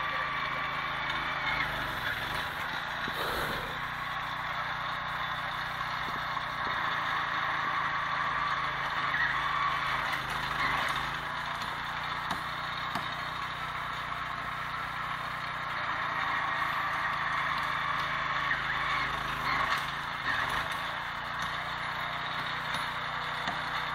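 Small petrol engine of a portable rail-screw driving machine running steadily as it fastens rails to sleepers, with a few light knocks.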